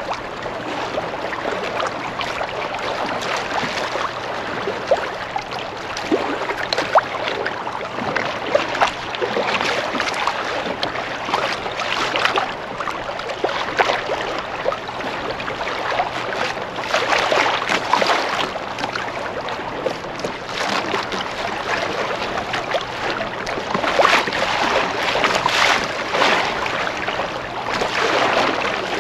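Choppy seawater lapping and slapping against a fishing kayak's hull in irregular splashes, with wind on the microphone.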